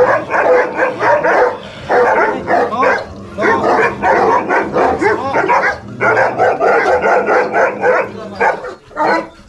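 Kennelled dogs barking rapidly and continuously in long runs with brief pauses: territorial, aggressive barking at a newly arrived Rottweiler being led past their pens.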